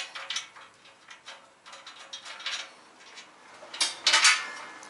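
Metal clinks and clatters of steel bolts, nuts and brackets being handled and fitted by hand, with a loud clink right at the start and the loudest cluster of clinks about four seconds in.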